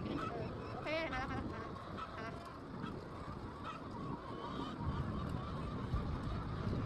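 Chickens clucking and squawking, with a sharp, wavering squawk about a second in, over a low rumble that grows louder after about five seconds.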